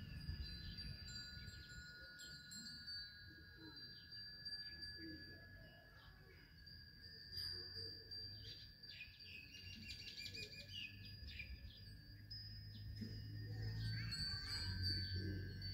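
Small hanging temple bells tinkling faintly and steadily, like wind chimes.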